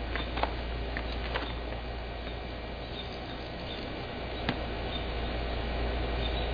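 Utility knife blade drawn along a screen frame's groove, trimming off excess screen mesh: light scratching with a few small clicks, and a sharper click about four and a half seconds in.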